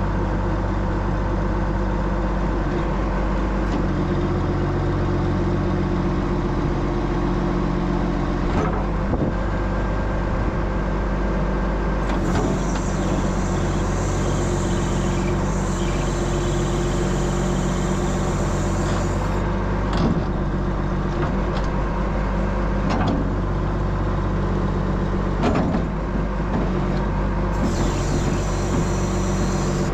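John Deere 710D backhoe's diesel engine running steadily while the freshly resealed hoe cylinders are worked, with a few short knocks from the boom. A high hiss comes in about twelve seconds in for several seconds, and again near the end.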